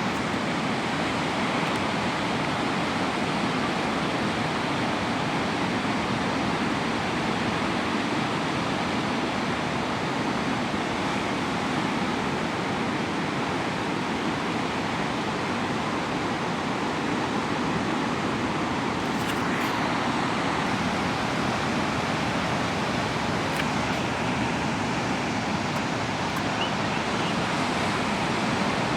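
Steady rush of ocean surf and wind on an action-camera microphone, with a few faint ticks in the second half.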